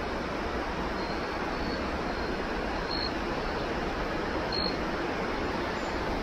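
Steady rush of a small stream running over rocks and riffles, with faint short high peeps now and then.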